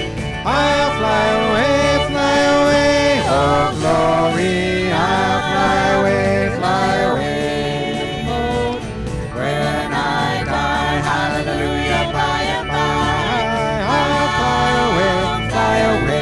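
Live country gospel music: a small group playing and singing, with wavering melody lines over steady acoustic accompaniment.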